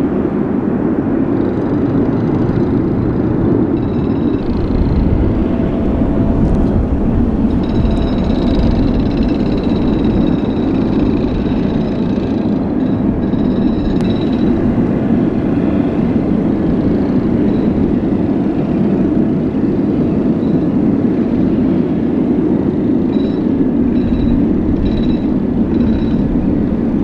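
Boeing 707 jet engines running loud and steady, with a faint high whine that comes and goes.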